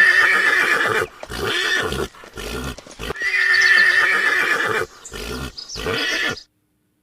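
A horse whinnying: two long neighs, the second beginning about three seconds in, with shorter, quieter sounds between and after them. The sound cuts off suddenly about a second before the end.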